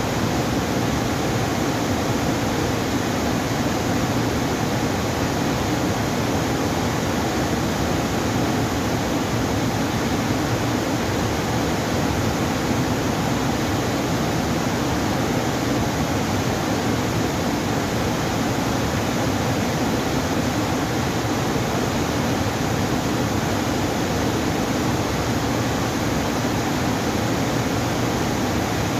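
Steady rushing of water, an even, unbroken noise with no change in strength, like river water pouring through a dam.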